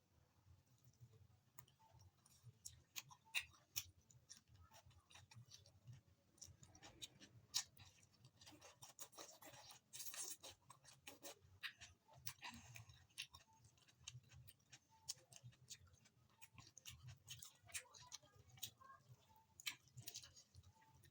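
Eating heard close to the microphone: quiet chewing of rice and curry with many scattered sharp clicks and taps, and a brief rustle about ten seconds in.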